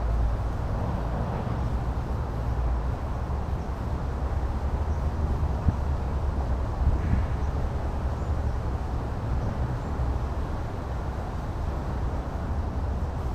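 Steady outdoor background rumble and hiss, the low rumble strongest, like traffic or wind heard on a walking camera's microphone.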